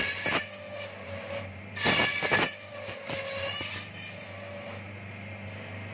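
Bamboo satay-skewer slicing and planing machine running: a steady motor hum with bursts of cutting and rattling as bamboo passes through the rollers and planer blades. The loudest burst comes about two seconds in, and the cutting noise dies away near the end, leaving the hum.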